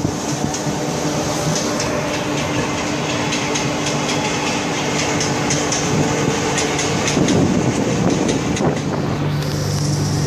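Humsafar Express passenger train running along the track, heard from aboard the coach: steady rolling noise with wheels clicking over rail joints and points. Near the end the clicking gives way to a steady low hum.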